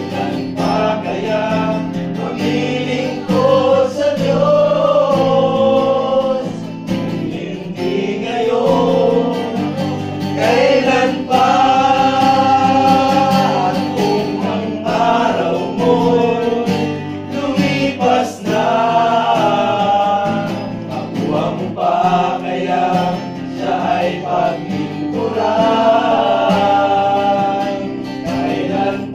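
A small group of men singing a worship song together, with sustained sung notes over a steady low accompaniment.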